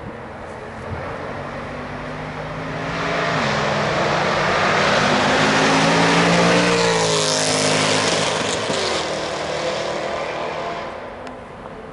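A car drives past on the track with its engine running under power. There is a gear change about three seconds in, and the engine grows louder as it approaches. Its pitch drops as it goes by, around seven seconds in, and then it fades away.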